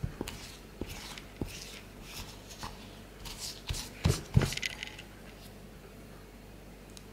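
Metal spoon scraping and knocking against a ceramic bowl while stirring a thick, sticky mix of melted gummy bears and cornstarch. There are two louder knocks about four seconds in.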